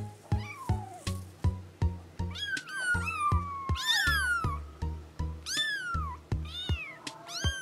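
Several kittens meowing, high-pitched mews that fall in pitch and often overlap, over background music with a steady low beat.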